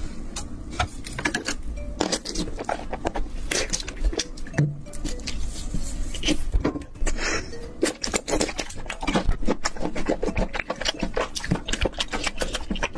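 Close-miked chewing and wet mouth smacking while eating seafood in a thick spicy sauce, made of many quick, irregular clicks and squelches.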